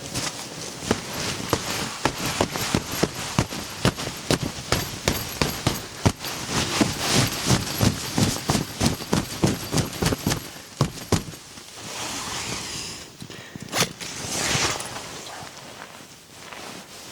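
A rapid, irregular series of sharp cracks and knocks, several a second, for about eleven seconds, followed by two brief rustling swishes.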